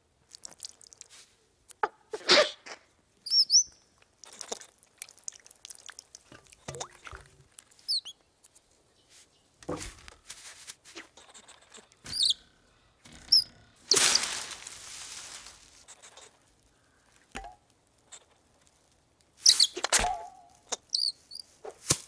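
Cartoon sound effects for a small animated bird and a squirrel: short high chirps and peeps, scattered rustles and clicks, and a longer rushing noise lasting about two seconds just past the middle.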